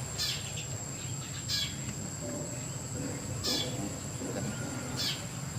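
A steady high-pitched insect drone over a low hum, with a short chirping call repeated four times, a second and a half to two seconds apart.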